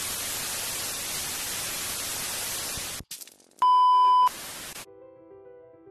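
Television static hiss that breaks off with a crackle, then a loud steady test-tone beep lasting under a second over colour bars. Hiss returns briefly, and soft piano music starts near the end.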